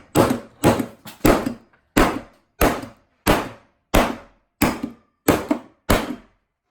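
A hammer repeatedly striking a Swamp Eye Submersible underwater fishing light resting on cardboard over a table: about ten hard blows in a steady rhythm, roughly three every two seconds, each with a short ringing decay. The blows stop about six seconds in.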